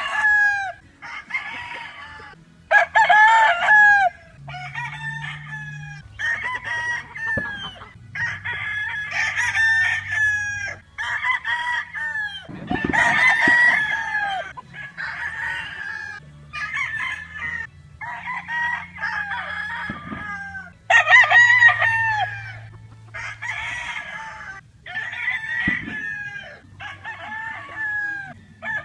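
Roosters crowing, one crow after another every second or two with some crows overlapping, with no quiet spell between them.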